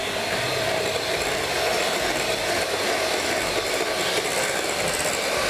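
Electric hand mixer running at a steady speed, its beaters whipping butter, sugar and eggs into a creamy cake batter.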